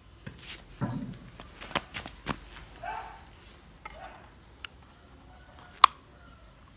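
A kitchen knife knocking into the hard shell of a roasted coconut in a series of sharp knocks, then the shell cracking as it is split and pried open, with one loud sharp crack near the end.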